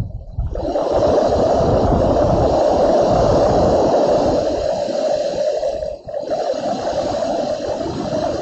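Storm noise: a loud, steady rush of wind and rain, dropping out briefly just after the start and again about six seconds in.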